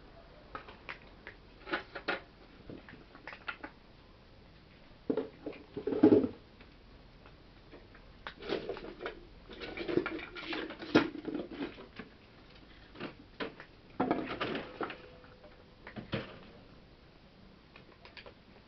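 Scattered soft clicks, taps and rustles from cats moving about and nosing around close by, with a louder bump about six seconds in and denser clusters of small noises near the middle and later on.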